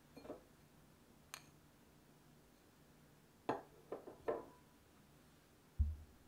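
Short clinks and taps of a stainless-steel mesh sieve resting on a metal mixing bowl as flour is added to it: a sharp click a little over a second in, three quick knocks around four seconds in, then a dull low thump near the end.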